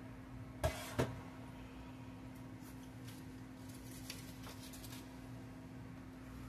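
Two short knocks of kitchenware about a second in, a dish or utensil striking the microwave bowl, then faint scattered clicks and scrapes, over a steady low hum.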